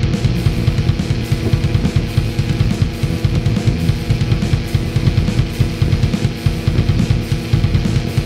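Heavy metal music with rapid, driving drums and guitar.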